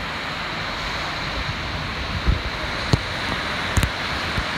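Ocean surf breaking and washing up on a sandy beach, a steady rushing wash, with a few low thumps of wind on the microphone.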